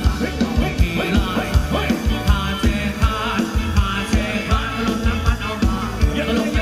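Thai ramwong dance song played by a live band, with singing over a steady, fast drum beat.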